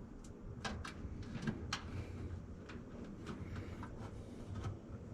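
Light clicks and taps of small parts being handled and fitted at a washing machine's lid-lock, over a faint low hum.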